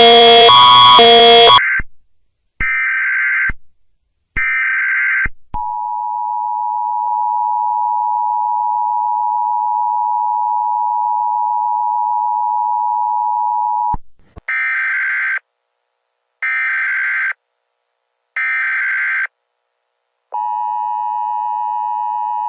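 Emergency Alert System tones from a mock alert. A loud pulsing electronic alarm cuts off about a second and a half in. Short SAME data bursts follow, then the steady two-tone attention signal for about eight seconds, then three more data bursts marking the end of the message, and the two-tone signal starts again near the end.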